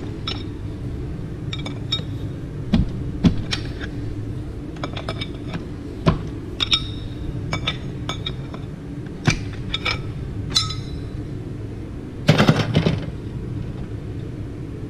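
Steel transmission parts clinking and tapping against each other as they are handled: scattered sharp metallic clicks, several ringing briefly, with a busier clatter about twelve seconds in, over a steady low hum.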